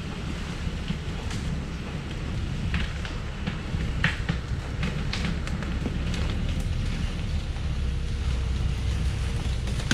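Thaco Foland truck's diesel engine running low and steady as it reverses slowly down the track, mixed with wind rumbling on the microphone and scattered crackles of branches.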